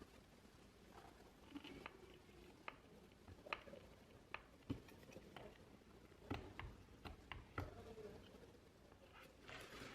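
Faint, scattered light taps and clicks of objects being handled, a dozen or so at irregular intervals.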